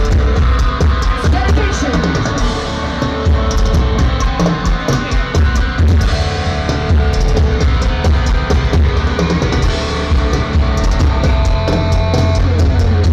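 Heavy metal band playing live at full volume: distorted electric guitar over fast, dense drumming with a pounding kick drum.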